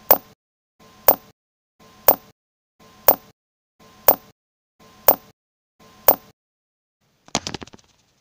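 Title-sequence sound effects: seven sharp clicks about a second apart, each with a faint hum just before it, then a quick rattle of clicks near the end.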